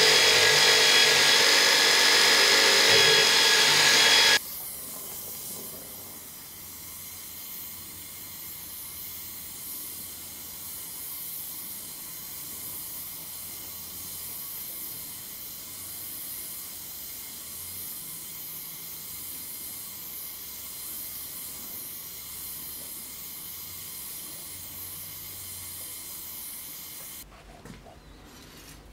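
HBM belt grinder running loudly as a steel cutlass blade is ground on the belt, cutting off sharply about four seconds in. Then an oxy-acetylene torch flame hissing steadily as it heats the blade to draw its temper.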